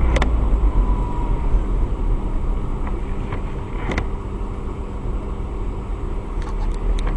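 Dash-cam recording of road and engine rumble heard from inside a car driving on a snowy road, steady and low, with a few light clicks, one about four seconds in.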